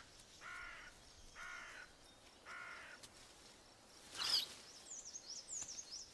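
Forest animal calls: four short pitched calls about a second apart, then a sudden loud noisy call about four seconds in, followed by quick high bird chirps.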